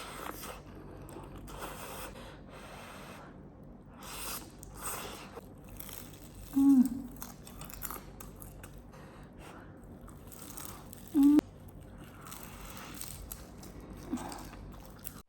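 Close-miked eating: irregular crunching bites and chewing, with two brief louder pitched sounds about halfway through and again near the end.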